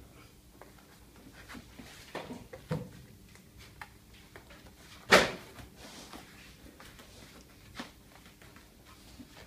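Plastic trim clips being pressed into a car door trim panel: a few sharp clicks and snaps with quiet handling between them, the loudest about five seconds in.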